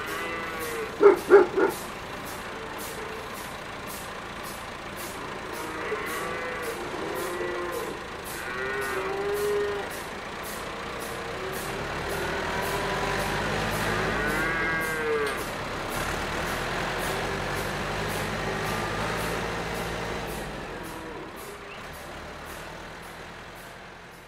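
Cattle mooing again and again over a fast, even ticking, with a couple of dog barks about a second in. A low vehicle engine rumble swells through the middle and dies away, and everything fades out near the end.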